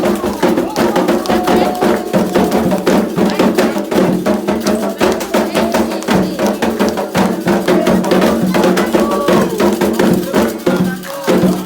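Candomblé ritual drumming: atabaque hand drums and a struck percussion part playing a fast, dense, driving rhythm under group singing of a chant.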